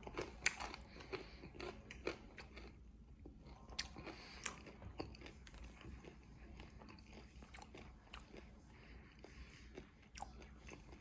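A person chewing crunchy salted caramel cashew and almond nut clusters, with faint irregular crunches and clicks from the mouth.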